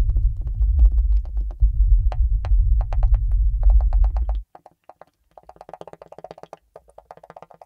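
Electronic free-improvisation music: a loud low rumble shot through with sharp, irregular clicks cuts off suddenly about four and a half seconds in. After it come quieter, rapid stuttering clicks.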